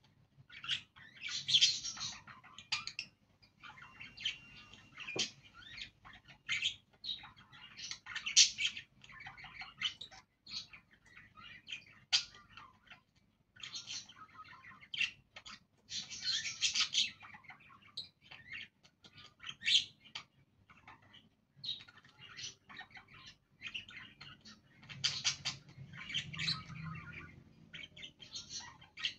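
Budgerigars chirping and warbling: an irregular run of quick, high chirps and chattering bursts with short gaps between them.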